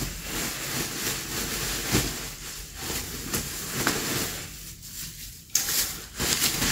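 Plastic parcel wrapping rustling and crinkling as it is pulled and torn open by hand; after a short lull, a louder rustle comes about five and a half seconds in.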